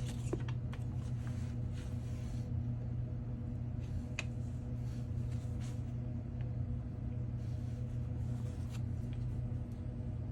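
Steady low electrical hum, with a few faint clicks and taps of tools against an iPhone 14 as its back glass is worked at.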